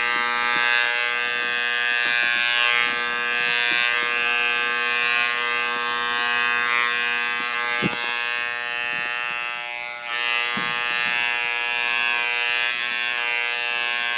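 Corded electric dog clippers running with a steady buzz while being worked through a dog's shaggy coat. A sharp click about eight seconds in.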